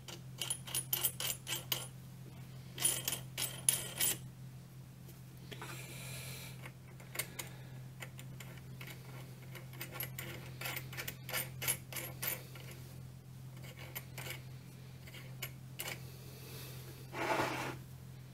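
Small steel parts on a mini lathe headstock spindle clicking and rattling in short bursts as the gears and collar on the spindle end are handled and turned by hand. A brief louder rubbing noise comes near the end.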